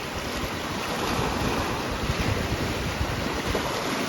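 Sea waves washing ashore, with wind buffeting the microphone.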